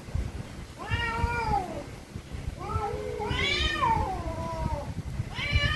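Domestic cats in a fight standoff yowling at each other with angry threat calls: three long, wavering cries that rise and fall in pitch, each lasting a second or two, the last starting near the end.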